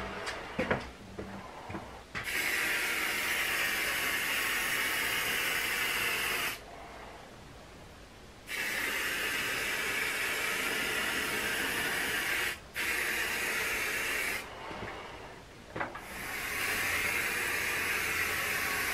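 Aerosol spray paint can hissing as paint is sprayed in four long bursts of a few seconds each, with short pauses between, the last still going at the end. A few light knocks come before the first burst.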